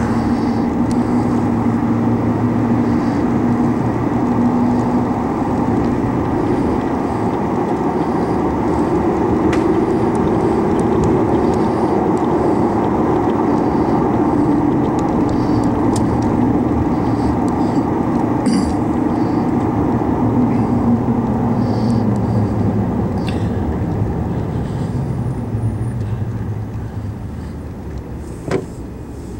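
Car engine and tyre noise heard from inside the cabin while driving, steady, then quieter as the car slows near the end, with a single sharp knock shortly before it ends.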